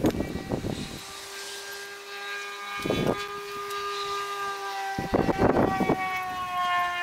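A held, droning tone with several overtones, most like background music, that steps to a new pitch about a second in and then sinks slowly toward the end. Over it come short bursts of rubbing noise, the loudest about three seconds and five to six seconds in, from hands spreading glue over a wooden axe wedge.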